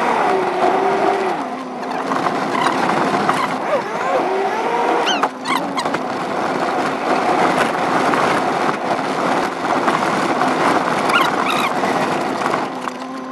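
Car engine and tyre noise heard from inside the cabin, played back sped up, so the engine's pitch rises and falls quickly and sounds like a racing car.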